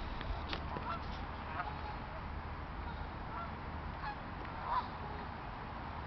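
Canada geese honking now and then: a few short, separate calls, the loudest about three-quarters of the way through, over steady outdoor background noise.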